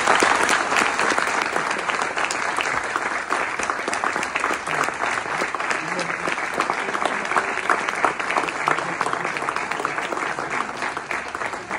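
Audience applauding, many hands clapping together, loudest at the start and easing off slightly toward the end.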